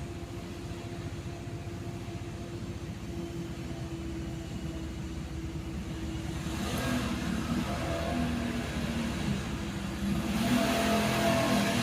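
Cosmos 56-CBA industrial ceiling fan running with a steady motor hum. From about halfway a louder rushing sound with engine-like tones builds up and grows again near the end.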